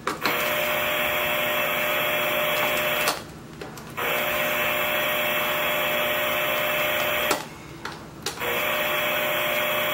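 Entech power-line noise sniffer sounding the electrical noise on the AC line through its speaker: a steady hiss with a buzzing hum. It cuts out twice for about a second as it is moved between the power strip's outlets. The noise is barely reduced, about 95% of the unfiltered level in every outlet.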